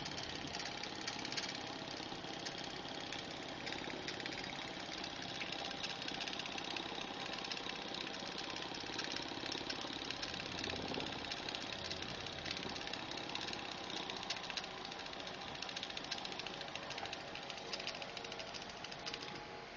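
Small hand-made steel-and-brass live steam outboard engine running on steam from a small alcohol-fired boiler, with a rapid, steady beat of its cylinder and works.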